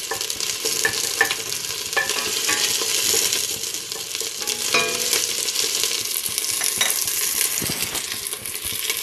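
Sliced onion and garlic sizzling in hot oil in a stainless steel pot while being stirred with a spatula, with scattered light clicks of the spatula against the pot.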